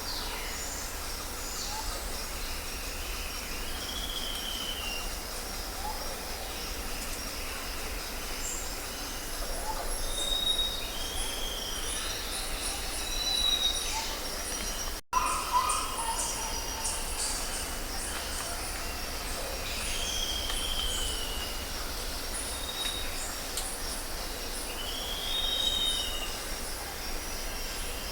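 Outdoor nature ambience: birds calling with short whistled notes that rise and fall, over a steady high-pitched pulsing trill and a low rumble. The audio cuts out for an instant about halfway through.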